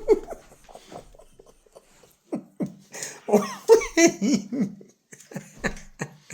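A man laughing in short bursts, with a few sharp clicks around it.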